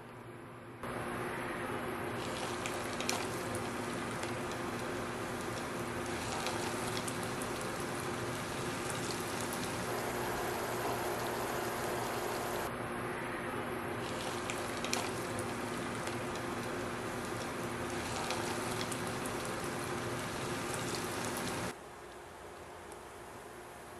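Breaded puff-pastry pies deep-frying in hot oil in a pot: a steady sizzle full of fine crackles, starting abruptly about a second in and cutting off suddenly near the end.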